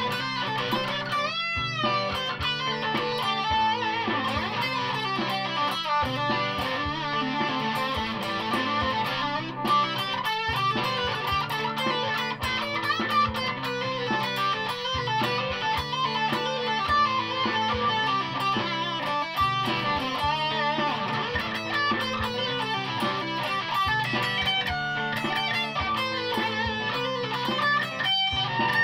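Electric guitar, a Fender Stratocaster played through a fuzz pedal and amp, running continuous distorted lead lines and riffs. A wide, wavering string bend comes about a second and a half in.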